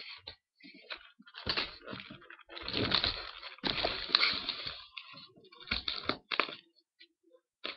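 Packaging being torn open and handled: irregular crinkling and rustling bursts, heaviest in the middle, with short pauses between.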